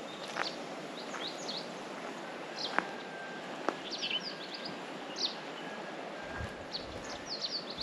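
Small birds chirping: short, high, downward-sliding calls scattered throughout over a steady outdoor hiss, with two sharp clicks midway and a low rumble coming in near the end.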